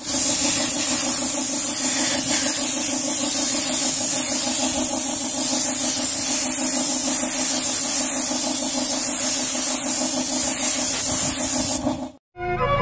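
Air spray gun spraying black paint onto a car body panel: a loud, steady hiss of air and paint mist, over a steady, rapidly pulsing mechanical hum. It cuts off suddenly about a second before the end.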